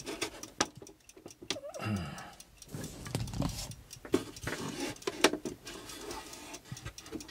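Mechanical clocks ticking, with a few knocks and rubs as hands handle a wooden clock case.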